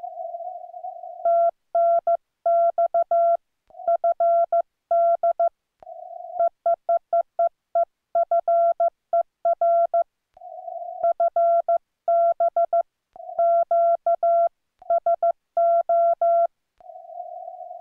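Morse code hand-keyed at about 15 words per minute, heard as the Yaesu FTDX10's clean CW sidetone near 700 Hz, spelling out 'TNX FER FB QSO'. A quieter, rougher hum fills the longer gaps between words.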